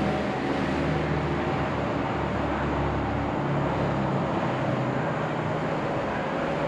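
Steady hum of highway traffic, a continuous wash of road noise with the low drone of passing vehicles.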